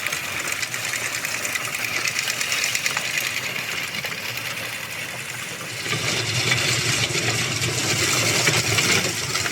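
Chain-driven Jang push seeder being pushed along a bed: its chain and seed rollers make a fast, steady clicking rattle that gets louder about six seconds in.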